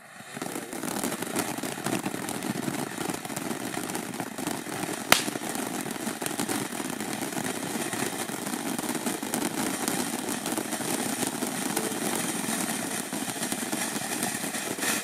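A 13-inch conic fountain firework burning with a steady rushing hiss, flecked with crackle from its sizzling stars, and one sharp crack about five seconds in.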